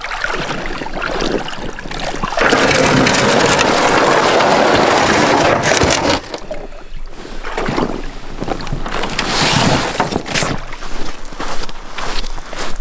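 Gear being unloaded from a boat onto a pebble beach: crunching steps on stones and bags rustling and knocking. A loud, even rush of noise runs from about two seconds in to about six seconds.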